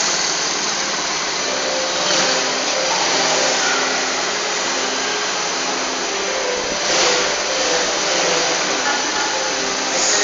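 A small ATV running as it is ridden: a steady, noisy motor drone with a faint tone that shifts up and down in pitch.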